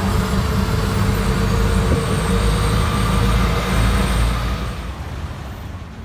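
Tuk-tuk (auto-rickshaw) engine running under way, with road and traffic noise coming in through the open sides of the cab. The rumble is loud and steady, then eases off about four and a half seconds in.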